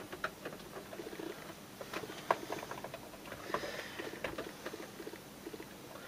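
Small irregular clicks, taps and scrapes of a laptop in a plastic shell case being handled, opened and set down on a DJ controller.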